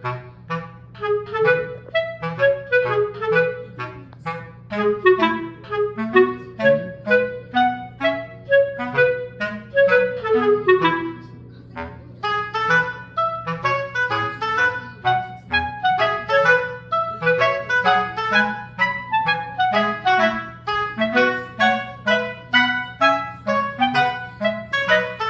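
Background music: a melody of short, quick notes over a steady low hum.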